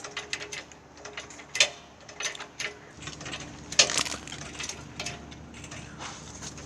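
Irregular clicks and light knocks, with sharper knocks about a second and a half in and near four seconds.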